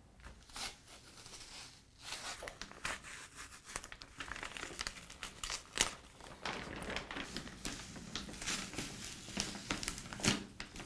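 Paper wrapping being torn open and crumpled by hand: irregular crinkling and rustling, broken by sharp rips.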